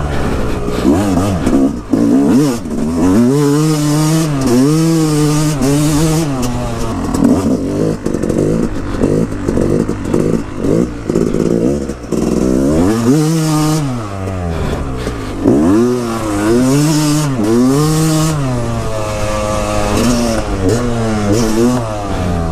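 Yamaha dirt bike engine revving up and down again and again as the throttle is opened and closed through the turns of a trail. Wind rushes over a helmet-mounted microphone, with scattered clattering.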